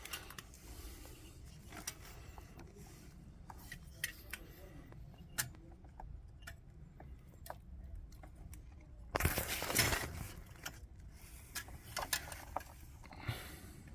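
Scattered light clicks and small metallic rattles of things being handled, with a louder scraping rustle lasting about a second, about nine seconds in.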